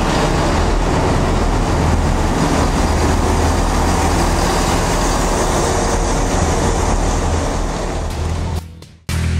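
Networker Turbo diesel multiple unit running past and away along the platform, its diesel engine humming steadily under the noise of wheels on rail. The sound fades out quickly near the end, and music starts right at the close.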